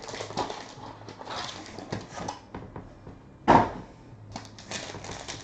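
Trading-card packaging being torn open and handled: rustling and crinkling, with one louder knock about three and a half seconds in.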